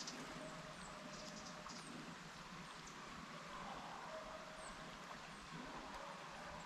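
Faint, distant baying of a pack of deer hounds (beagles and Walker hounds) running a deer, in short drawn-out bawls every second or two, with a few thin high bird chirps over it.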